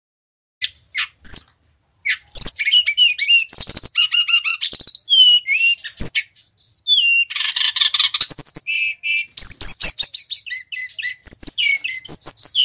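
Male brown-chested jungle flycatcher singing. A few short notes come first, then from about two seconds in a fast, unbroken, varied song of whistled up-and-down glides and quick chattering notes.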